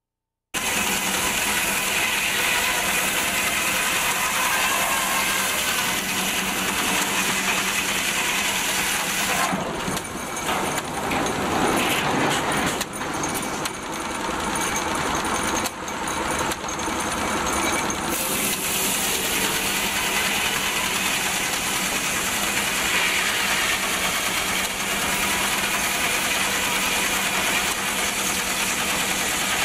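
Circular sawmill running, its large blade sawing boards off a log on the carriage, with a loud, steady mechanical noise. From about ten seconds in, it turns for some eight seconds to a run of quick clicks and clatter before the steady noise returns.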